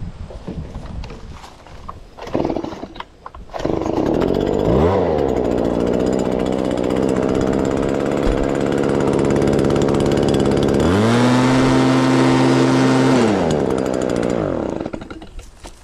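An engine running steadily, revved up to a higher pitch for about two seconds past the middle and then dropping back, before it fades out near the end. Scattered knocks are heard before it comes in.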